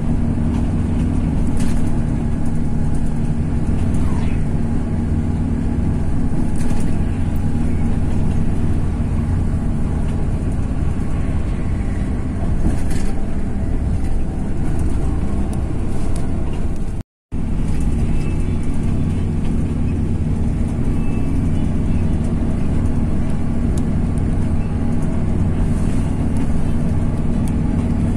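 Coach bus on the move: a steady engine and road drone, cutting out to silence for a moment about seventeen seconds in.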